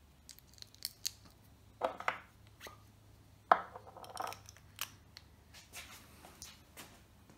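Small metal pen parts being handled: light clicks and short scraping as an assembled Sierra-style twist pen is twisted and checked. The loudest is a sharp click followed by scraping about three and a half seconds in.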